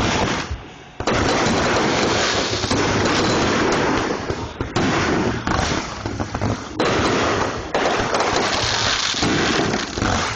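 Fireworks going off close by in a dense, near-continuous barrage of bangs and crackle, with a few brief breaks.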